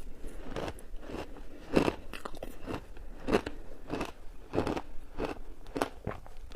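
Crunchy shaved ice being bitten and chewed: a steady run of crunches about every half second, the loudest around two seconds in.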